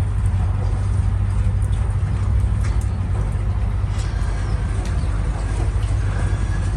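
Fiat 126's air-cooled two-cylinder engine being cranked steadily on the starter motor without firing: the engine is getting no fuel, which the owner blames on the carburettor.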